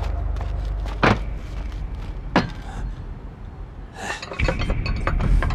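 A couple of single knocks, then from about four seconds in a quick run of clinks and clatters of stacked ceramic bowls being handled on a wooden table.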